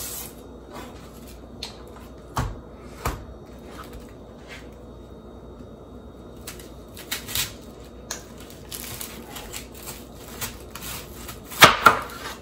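A chef's knife slicing through a head of green cabbage, the crisp leaves crunching and crackling, with the blade knocking on a plastic cutting board several times. The loudest knocks come near the end.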